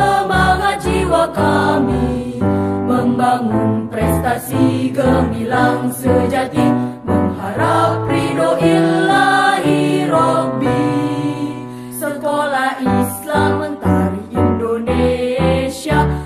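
An Indonesian school anthem (mars) sung with instrumental backing and a steady beat.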